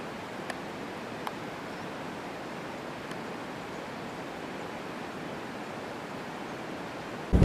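Steady, even outdoor hiss like distant rushing water or wind, with two faint clicks about half a second and just over a second in.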